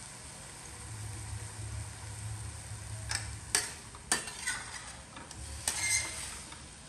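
Metal slotted turner scraping and clacking against a steel wok while food is stir-fried, over a steady sizzle. The scrapes and knocks come in a cluster from about three seconds in.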